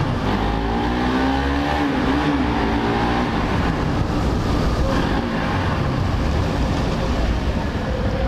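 Motorcycle engine running under riding noise, its pitch rising and wavering between about half a second and three seconds in, inside a road tunnel.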